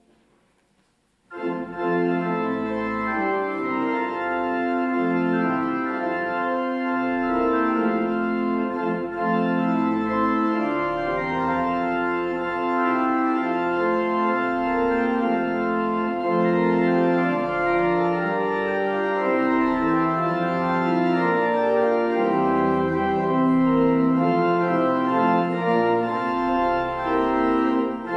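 Church organ playing the postlude: full, sustained chords with a low pedal bass line, starting about a second in after a moment of near silence.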